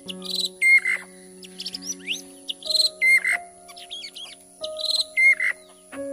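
Birds calling: a rapid series of short chirps and whistled up-and-down glides, repeating about once a second, over a steady background of several held low tones.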